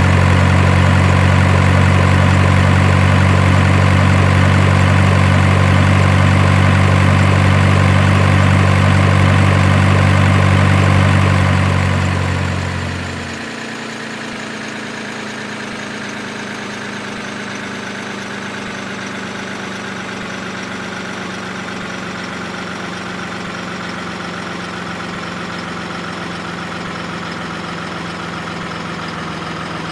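Steady engine-like hum. A loud low drone cuts out about thirteen seconds in, leaving a quieter steady hum.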